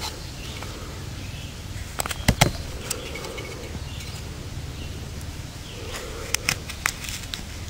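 Knife blade carving a notch into a wooden bow-drill hearth board: a few sharp clicks and snaps as the blade bites and chips break away, in a group about two seconds in and another near the end.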